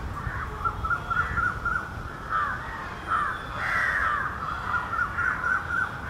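Birds calling in quick runs of short, overlapping notes, with a louder burst of calls about four seconds in.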